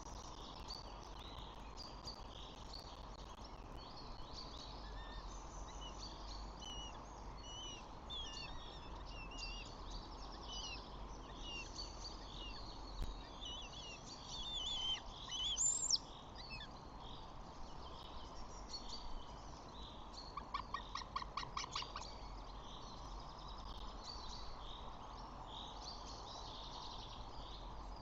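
Wild birds chirping and singing in a busy chorus over a steady background hiss. A louder call sweeps upward just past halfway, and a few seconds later comes a quick run of about a dozen evenly spaced repeated notes.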